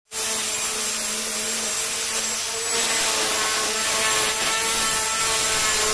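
Electric angle grinder fitted with a sanding disc, running steadily while sanding a carved teak cabinet door: a constant motor whine over the hiss of the abrasive on the wood, growing slightly louder about halfway through.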